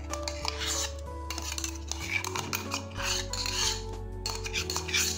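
Several short bouts of metal scraping and clinking as crushed pineapple is scraped out of a steel cup into a stainless steel mixing bowl, over soft background music.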